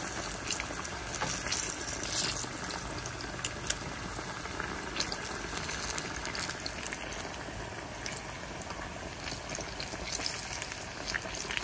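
Battered bananas deep-frying in a pan of hot oil: a steady bubbling sizzle.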